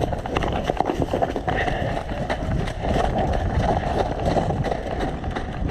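Footsteps and the rustle and knock of gear as an airsoft player moves on foot, as irregular knocks over a continuous noisy rush.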